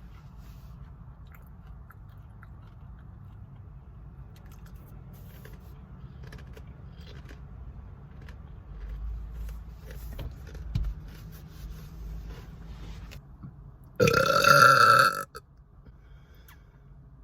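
Soft chewing with faint clicks, then about fourteen seconds in a woman's loud, drawn-out burp lasting over a second.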